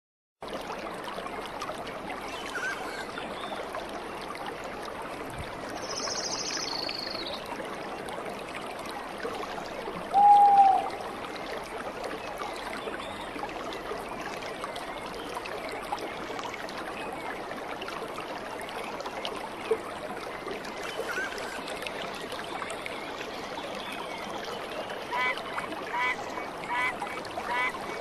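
Outdoor countryside ambience: a steady rushing hiss with a few scattered short calls, the loudest a single short call about ten seconds in, and a run of short repeated calls, roughly one or two a second, near the end.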